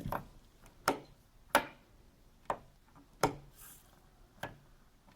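Wall light switch flipped up and down repeatedly: about six sharp clicks, irregularly spaced, less than a second apart.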